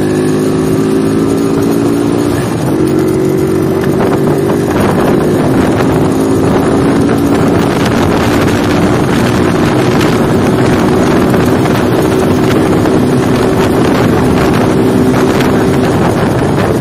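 An old Honda motorcycle engine running steadily under way, heard from the rider's seat, with a brief dip in its note about two seconds in. Wind buffets the microphone more and more from about five seconds on.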